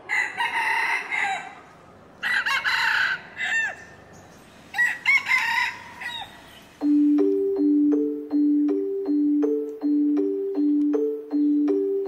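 Rooster crowing in three bouts over the first six seconds. Then light mallet-percussion music begins about seven seconds in, a steady pattern of two alternating low notes.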